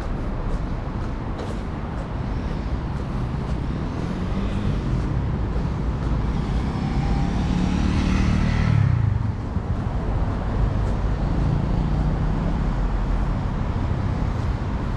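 City street traffic: a steady rumble of engines, with one vehicle passing close by, loudest about eight seconds in, its engine note dropping as it goes past.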